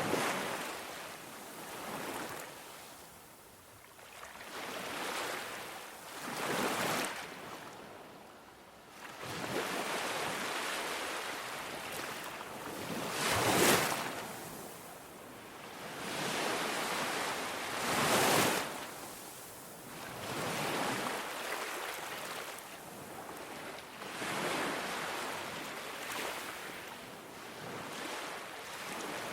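Ocean waves breaking on a beach, each surging in with a rush of hiss and then drawing back, one every few seconds. The two strongest crashes come a little before and a little after the middle.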